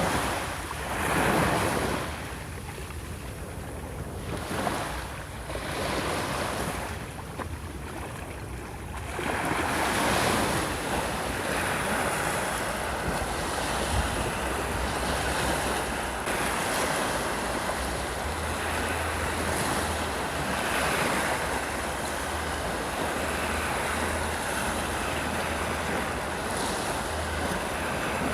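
Sea waves breaking on a sandy beach. Several separate surges come in the first nine seconds or so, then the surf runs on as a continuous wash.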